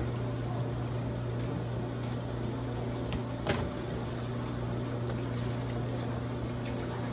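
Kitchen faucet running steadily into a stainless steel sink while raw chicken is rinsed under it in a plastic colander, over a low steady hum. Two light knocks come a little after three seconds in.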